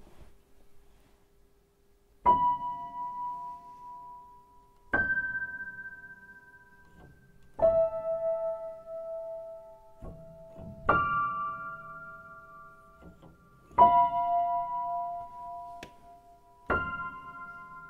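Slow piano music: a chord struck about every three seconds and left to ring out and fade, six in all.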